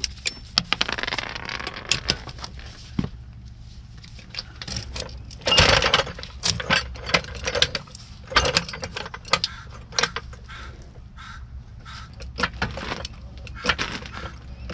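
Metal clinks and rattles of hand tools and a floor jack being handled, with scattered sharp clicks and a denser clatter about six seconds in.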